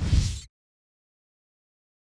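A brief outro sound effect lasting about half a second, heavy in the bass, as the show's end graphic cuts to the end card; then dead digital silence.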